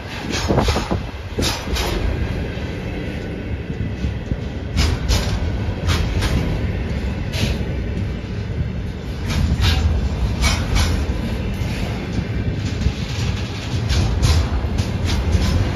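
Freight train of container flat wagons rolling past close by: a steady low rumble of wheels on rail, with sharp clacks at irregular intervals, a second or more apart.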